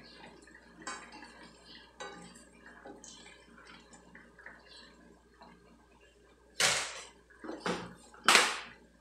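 Metal ladle stirring and scooping coconut-milk broth in a metal wok, with soft liquid sloshing and light clinks. About two-thirds of the way in come three loud, sharp clatters of kitchen utensils and containers being handled and set down, the last one the loudest.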